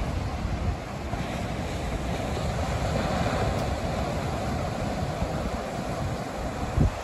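Small rolling waves breaking and washing up the shore in a steady surf hiss, with wind rumbling on the microphone.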